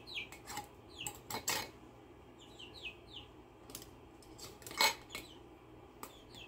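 Metal canning lid and screw band clicking and scraping against a glass mason jar as the band is worked onto the threads, with a sharper click about five seconds in. A few short, faint high chirps that fall in pitch sound in between.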